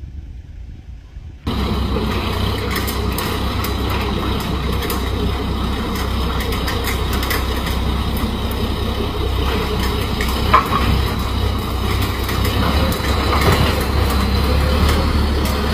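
Engine of a modified tracked tractor running loudly and steadily with a deep rumble and a clattering, ticking texture, cutting in suddenly about a second and a half in.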